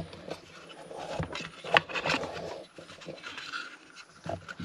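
Handling noise as a BMPRO Commlink cable plug is fiddled into a terminal socket on an Odyssey Link 103 power module: scattered small plastic clicks and rubbing, the sharpest clicks just under two seconds in.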